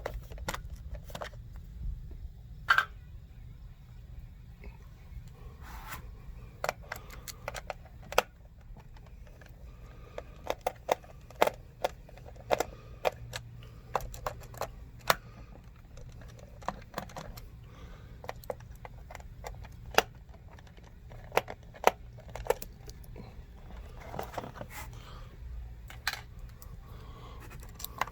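Irregular small clicks, taps and light scrapes of hand tools and plastic being handled as an old Ring Video Doorbell 2 is taken off the wall to expose its wires.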